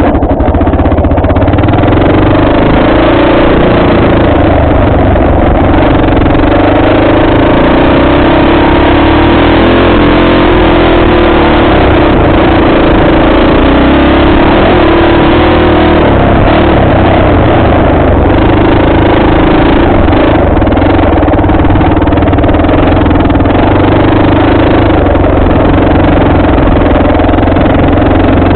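Dirt bike engine running steadily under way, loud on the on-board microphone, its pitch wavering a little with the throttle.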